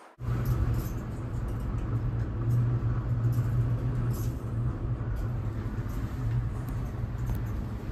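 Steady low hum and rumble inside a moving Ferris wheel gondola.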